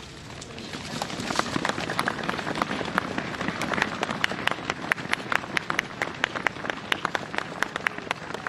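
Crowd applauding: dense clapping that swells about a second in and keeps on steadily.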